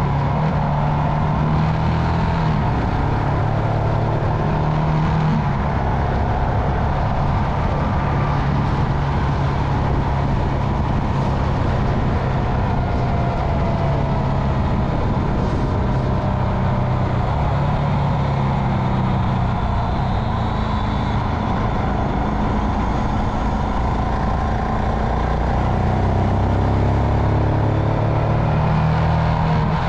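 Royal Enfield Himalayan's 411 cc single-cylinder engine running steadily under way, its pitch stepping up and down several times as the riding speed changes, over a steady rush of wind and road noise.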